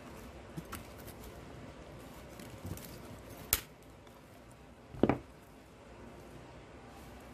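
Small hand cutters snipping sprigs off a wire-stemmed artificial gold eucalyptus stem: a sharp snip about three and a half seconds in, then a duller, louder knock about a second and a half later, with a few faint ticks of handling around them.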